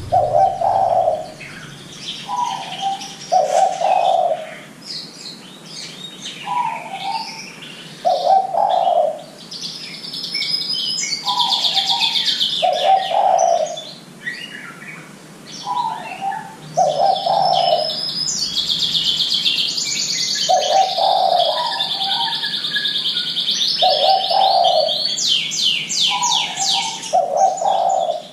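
Spotted dove (derkuku) cooing: a two-part coo, a short higher note then a longer lower one, repeated every three to four seconds. The coos are used as a lure to get a young dove calling. Small songbirds chirp and trill rapidly over it, most busily in the second half.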